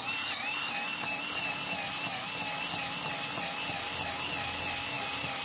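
Cordless battery drill with a small bit running steadily under load as it bores into a hard jackfruit tree root: a continuous motor whine that wavers slightly in pitch.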